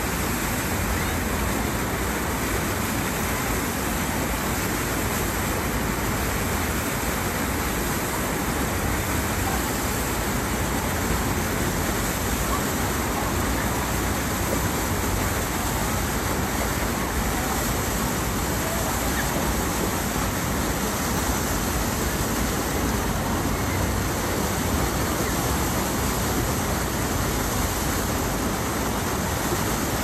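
Steady rushing of water through a river rapids ride's channel.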